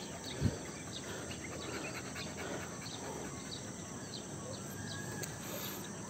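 Steady rural outdoor background with scattered short, high chirps from insects and birds, and one brief low thump about half a second in.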